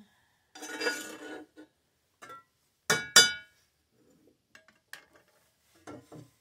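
Metal kitchen utensil scraping in a cast iron skillet, then two sharp ringing clinks of metal cookware about three seconds in, followed by a few lighter knocks as the skillet and enamel pan are handled.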